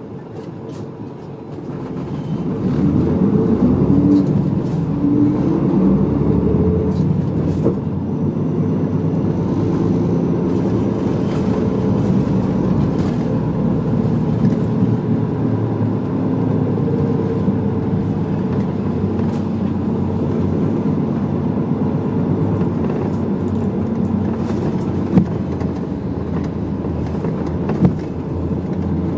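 Medium-size route bus's engine heard from inside the cabin: the engine revs rise as the bus pulls away about two seconds in, then it runs steadily along the street. There are two sharp knocks near the end.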